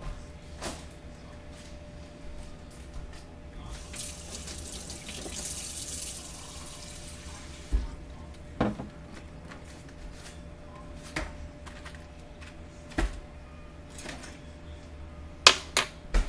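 Kitchen tap running into the sink for about three seconds, starting a few seconds in. It is followed by a scatter of sharp knocks and clatters from things being handled at the counter, and the loudest of these come near the end.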